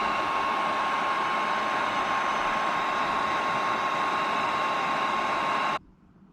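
Electric heat gun blowing hot air to shrink heat-shrink tubing over soldered wire splices: a steady blowing rush with a steady whine, cutting off suddenly near the end.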